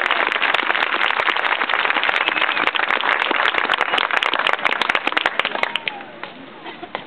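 Crowd in the stands applauding, a dense patter of clapping with some voices mixed in, that thins out and dies down about six seconds in.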